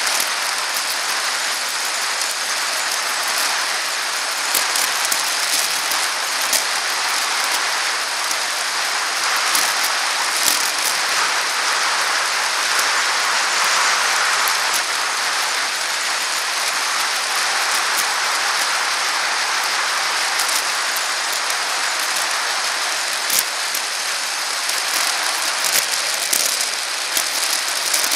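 Steady hiss of wind and tyre noise from a bicycle riding along a paved path, with scattered sharp clicks and rattles as it rolls over bumps.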